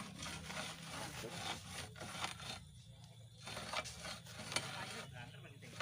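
Repeated scraping and rubbing as a manual well-drilling pipe is turned by hand in the borehole, over a steady low hum. It breaks off briefly about three seconds in.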